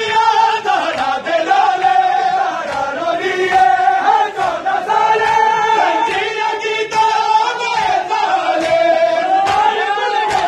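Crowd of men chanting a mourning noha in unison, long drawn-out sung lines, over a regular beat of hands slapping bare chests (matam), roughly once a second.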